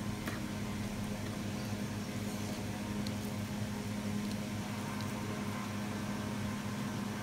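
Steady, even mechanical hum, such as a kitchen appliance or fan motor running, with a few faint clicks from the meat being handled on a plastic cutting board.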